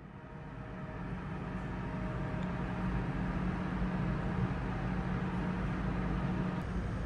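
Steady low mechanical hum of a ship's machinery with a rushing noise over it, fading in over the first couple of seconds.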